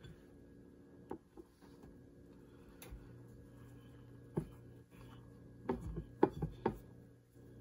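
Hands pressing and rubbing a flour tortilla flat on a plate, with a few light knocks and taps from the plate being handled, most of them between about four and seven seconds in. A faint low hum comes in about three seconds in.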